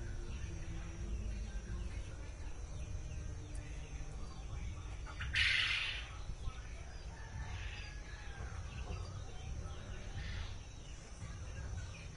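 Low rumbling background noise with faint bird calls now and then, and one short, louder noise about five and a half seconds in.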